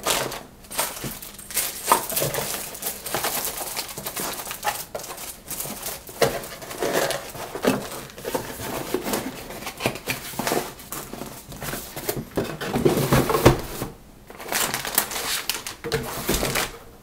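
Plastic and foil bags crinkling and a cardboard box insert rustling and scraping as small packed parts are put back into a cardboard box; irregular handling noises with a brief lull about three-quarters through.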